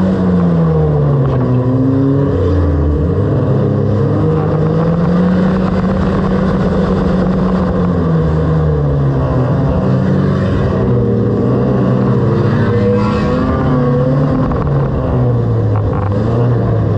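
Banger race car's engine running, heard from inside its stripped-out cabin, its pitch repeatedly rising and falling as the throttle is worked.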